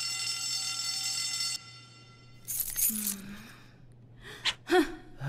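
An alarm sounds steadily, one held tone, and cuts off suddenly about a second and a half in. Then come breathy gasps and short vocal sounds from a cartoon character.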